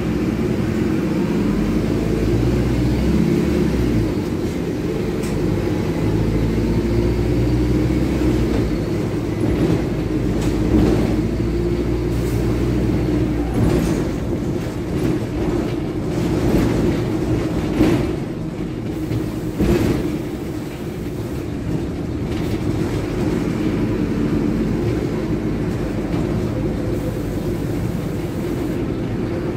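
Mercedes-Benz OM-924 LA four-cylinder diesel of a city bus running under way, heard from inside the bus, with its free-flowing 'escape libre' exhaust; the engine sound swells and eases, with several short knocks and rattles in the middle stretch.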